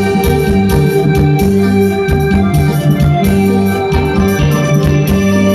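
Live band playing an instrumental passage: held electronic organ chords over a steady drum beat, with no singing.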